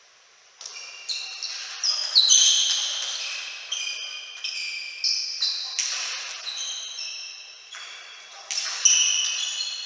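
A table tennis rally: the plastic ball struck by rubber bats and bouncing on the table, a run of sharp pocks that each ring briefly in a large hall. The rally starts about half a second in, quick strokes at first, then about one hit a second, with a fast cluster of hits near the end.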